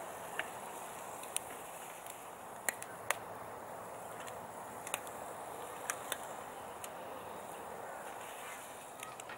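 Bacon and eggs frying in a pan on a portable gas stove: a steady sizzle with scattered sharp clicks and pops.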